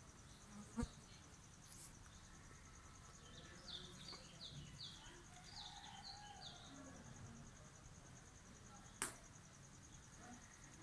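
Near silence: a faint, steady, high pulsing trill throughout, a run of faint short chirps in the middle, and two brief clicks, about a second in and near the end. No sneeze is heard.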